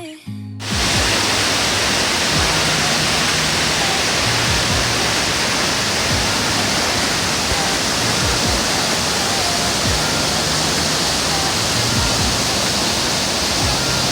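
Music cuts off about half a second in. Then comes a loud, steady rush of cascading mountain-stream water that does not change.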